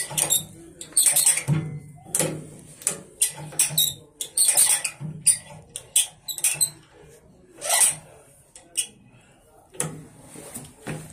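Metal control lever in a locomotive cab worked back and forth by hand, giving a run of irregular clicks, clunks and squeaks.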